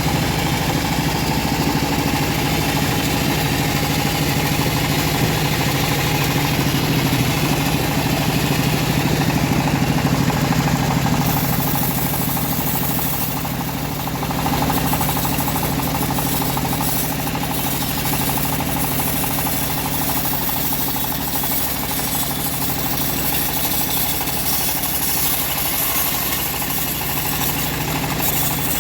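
Homemade engine-driven bandsaw sawmill running steadily while sawing an old mahogany log. The sound changes about eleven seconds in, turning hissier, with a brief dip in loudness a couple of seconds later.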